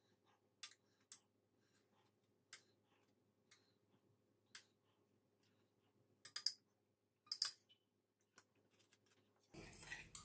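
A metal spoon clicking lightly against a dish while aubergine filling is spooned onto puff pastry squares: scattered ticks, the loudest a few clustered about six and seven seconds in, with near silence between.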